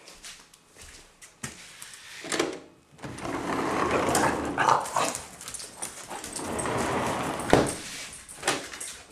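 Two dogs whining and barking excitedly, in two long stretches of a few seconds each with sharp barks cutting through.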